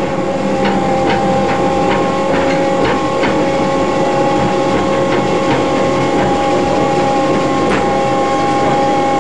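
Pemberton tram railcar running along the track, its motor and drive giving a steady whine, with the wheels clicking over rail joints about twice a second for the first few seconds, then more sparsely.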